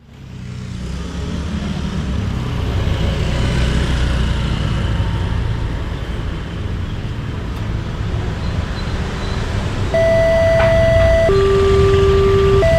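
Railway level-crossing electronic warning siren (an MP3-type sounder) starts about ten seconds in. It alternates between a higher and a lower steady tone, each held for about a second and a half, and is the loudest sound. Before it, and under it, is a low rumble of road traffic.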